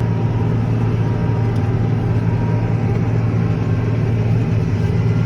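Farm tractor engine running steadily at a constant speed, a loud low hum that starts abruptly at the cut.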